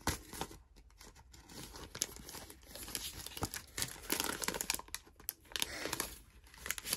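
Clear plastic sticker packaging crinkling and crackling in irregular bursts as it is opened and the sticker sheets are pulled out.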